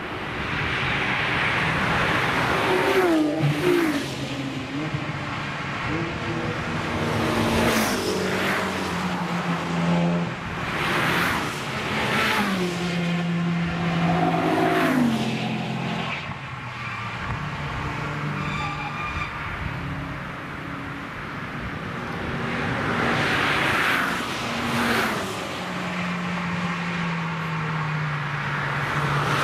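A string of cars driving past at high speed, one after another. Each engine swells up as it approaches and its note drops as it goes by, with gear changes heard now and then.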